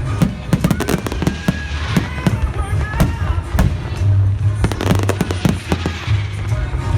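Fireworks going off in rapid succession, many sharp bangs and crackles, over loud show music with a heavy bass line.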